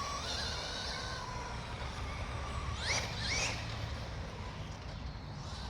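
Whine of a Traxxas 2WD RC car's electric motor as it drives. The whine holds a steady pitch, then climbs sharply twice in quick succession about three seconds in as the car speeds up.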